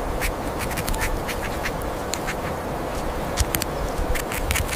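Steady hiss of running water with irregular clicks and taps as a muddy plastic toy mouse is washed and handled.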